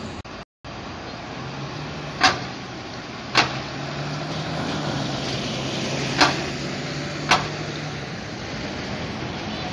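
Lothian double-decker buses passing close by in street traffic, their diesel engines running, with two sharp knocks about a second apart as one bus goes by and another pair as the next passes. A brief dropout comes just after the start.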